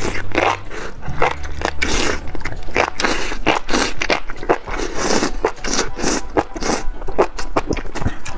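Close-up eating sounds: a quick run of wet slurps and chewing as a mouthful of enoki mushroom strands in spicy broth is sucked in and bitten.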